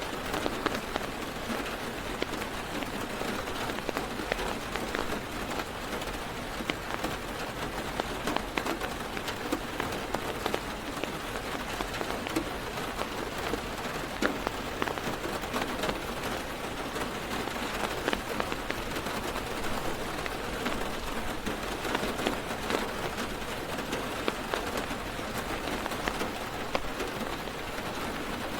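Heavy rain drumming steadily on a car's roof and windows, heard from inside the car, with many individual drops ticking sharply against the patter.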